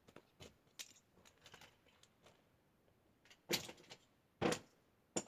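Fidget toys being tossed one after another into a container, a run of light knocks and clatters, with louder hits about three and a half and four and a half seconds in.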